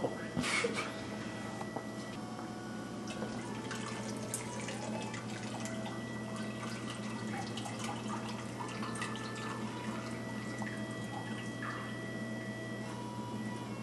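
A bag of steeped grain drains over a stainless steel brew kettle, with wort dripping and trickling back into the pot over a steady low hum. There are a few louder splashes in the first second as the bag comes out.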